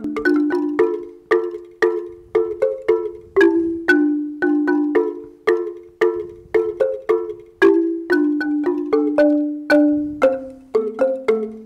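Marimba de chonta playing a quick repeating melodic pattern, several mallet strokes a second, each note ringing briefly and overlapping the next.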